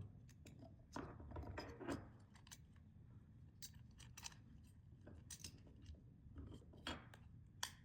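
Faint scattered clicks and light scrapes of a CR2032 coin cell battery being fitted by hand into a garage door remote's plastic housing.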